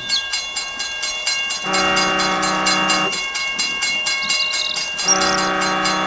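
Toy steam locomotive train set running: a steady rapid clicking of about four to five clicks a second, with two steady horn blasts of about a second and a half each. The second blast starts about five seconds in.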